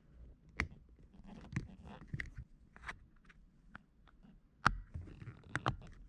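2004 Honda Civic driver's seat belt buckle being handled as its plastic cover is pushed back on over the buckle switch: a string of sharp plastic clicks and snaps with scraping in between, the loudest snap about three-quarters of the way through.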